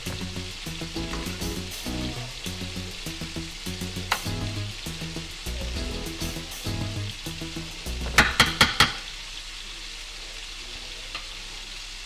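Chicken sizzling in a frying pan with a steady hiss, while a metal spoon scrapes and pats rice mixture into a glass baking dish. About two-thirds of the way through, the spoon clinks sharply against the dish about five times in quick succession. Soft background music plays until the clinks.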